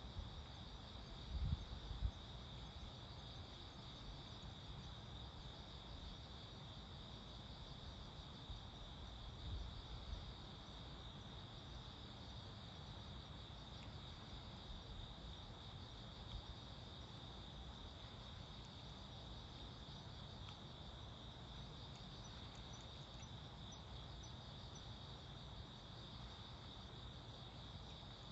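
Crickets chirring in a steady, continuous high-pitched chorus, fairly faint. There are brief low thumps about a second and a half in and again around ten seconds.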